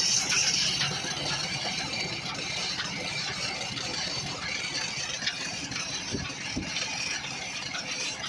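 Belt-driven wood lathe running steadily while the turner works the spinning wooden churning-stick spindle by hand, a hiss of wood being worked that is strongest in the first second. Two faint low knocks about six seconds in.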